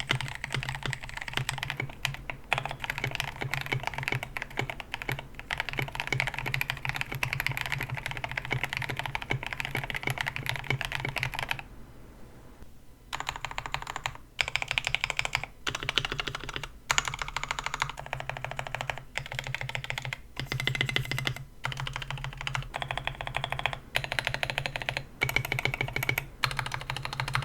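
Typing on a KBD67 Lite mechanical keyboard with linear Gateron Yellow KS-9 Pro switches on a polycarbonate plate. The keystrokes are fast and continuous at first, stop briefly about twelve seconds in, then come in bursts with short breaks.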